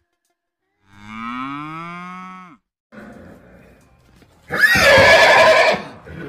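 Recorded animal calls: a long, low pitched call about a second in, then a quieter rough sound, then a louder, harsh call with a high tone near the end.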